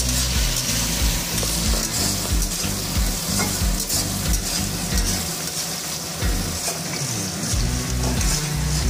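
Diced onion, capsicum and tomato sizzling in oil in an aluminium kadai while a flat metal spatula stirs and scrapes them around the pan.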